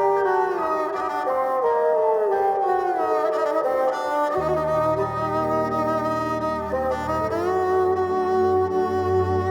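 Instrumental music led by bowed strings playing sliding melodic lines; a low sustained bass comes in about halfway through.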